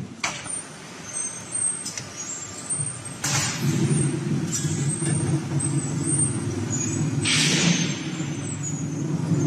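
Factory machinery noise from a hydraulic coil-bending machine winding a red-hot steel bar: a steady low hum sets in a few seconds in, broken by short bursts of hiss, the longest and loudest about three-quarters of the way through.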